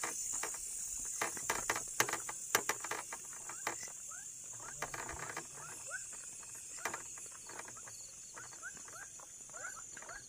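A steady high chorus of night insects, with short rising animal chirps repeating from about four seconds in, over footsteps clicking and scuffing on the paved road.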